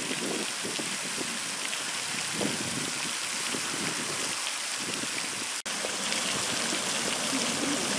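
Pond fountain jets spraying, the falling water pattering steadily onto the pond surface like rain. The sound cuts out for an instant about five and a half seconds in.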